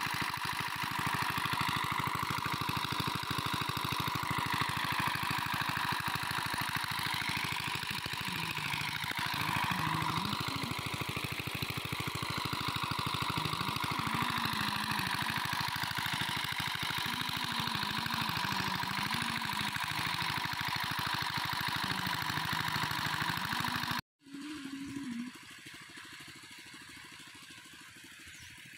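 Engine-driven water pump running steadily, with water gushing out of its outlet pipe and splashing onto the river. The sound cuts off abruptly near the end, leaving quieter outdoor background.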